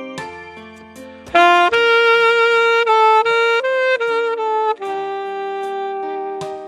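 Instrumental music: a solo wind instrument plays a melody in held notes over a lower accompaniment. A quieter stretch about a second in gives way to louder, higher phrases.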